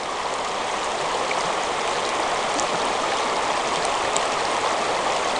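Shallow river water running over stones, a steady rushing flow.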